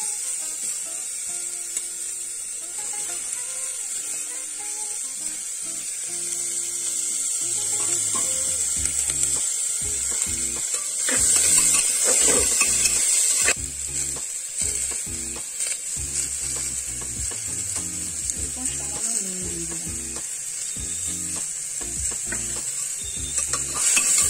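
Chopped vegetables sizzling in hot oil in an aluminium pressure cooker. A metal spoon scrapes and clatters against the pot as they are stirred, loudest about halfway through.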